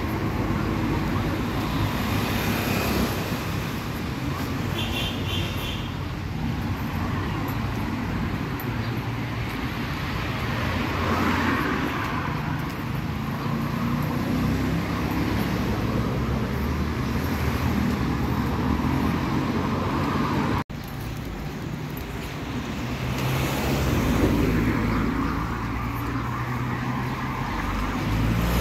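City street traffic: car engines and tyres running steadily, swelling as cars pass close by about a third of the way in and again near the end.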